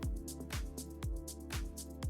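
Background music with a steady electronic beat, a kick drum about twice a second.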